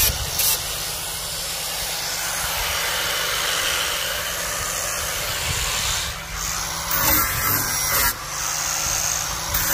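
Angle grinder with a sanding disc running against wooden planks, a steady rasping hiss as it sands the wood. It dips briefly about six seconds in, and a couple of knocks follow near the end.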